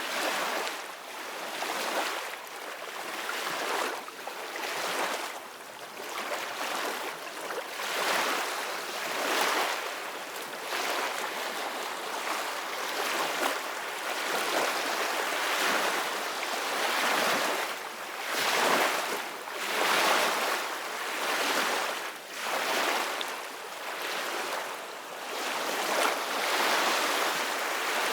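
Sea waves washing and splashing in a continuous surge that swells and eases every second or two.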